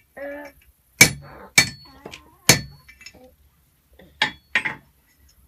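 Blacksmith's hammer striking metal on an anvil, each blow a sharp ringing clink: three loud strikes in the first half, then two lighter ones near the end.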